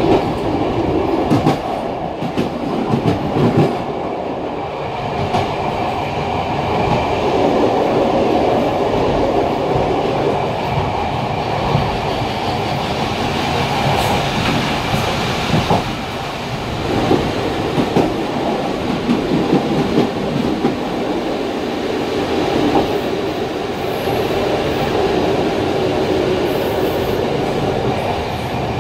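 PKP TLK passenger train running along the rails at night: a steady rumble of the moving carriage with irregular sharp clacks as the wheels pass over rail joints.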